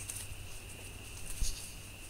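Light rustling of brush and one short thump about one and a half seconds in, over a steady high-pitched chorus of night insects.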